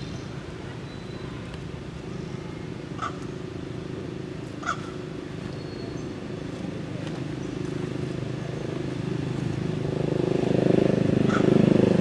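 Steady low hum of a motor vehicle's engine that grows louder in the last few seconds, as if coming closer. Two short, high chirps sound a few seconds in.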